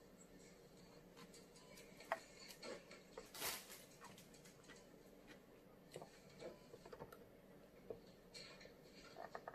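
Faint food-handling sounds: soft ticks and taps as ham and thin pickled-radish slices are laid on bread in an open sandwich maker, with a brief rustle about three and a half seconds in and a few small clicks later as the sandwich maker's lid is closed.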